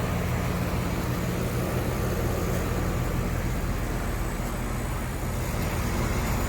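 Outdoor air-conditioning condensing units running: a steady low compressor hum under the even whoosh of the condenser fans.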